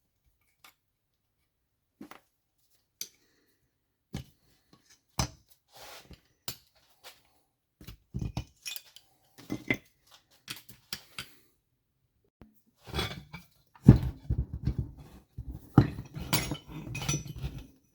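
Hand tools clinking and knocking against a Tomos moped engine casing as a stubborn part is worked loose. Scattered single knocks at first, then a dense run of clanks and clinks over the last few seconds.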